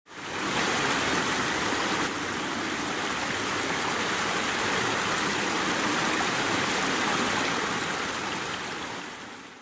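Small woodland waterfall: water running steadily over rocks into a shallow stream. It fades in at the start and fades out near the end.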